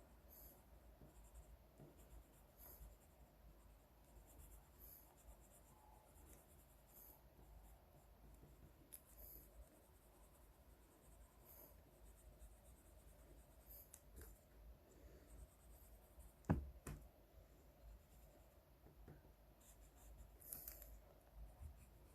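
Faint scratching of drawing strokes on paper, in short strokes every couple of seconds. There is one sharp tap about three quarters of the way through.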